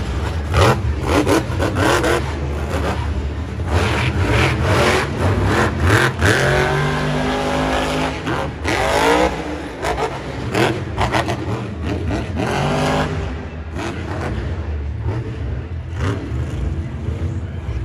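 Son-Uva Digger monster truck's supercharged V8 revving hard and dropping off again and again, with repeated sharp cracks through the first half. The engine settles to a lower, quieter run for the last few seconds.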